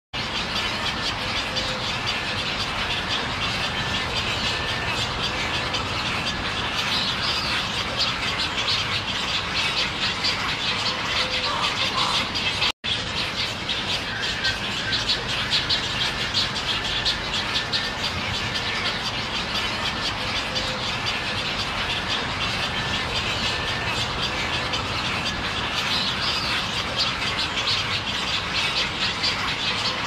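A dense, steady chorus of many birds calling at once. It cuts out for an instant about thirteen seconds in.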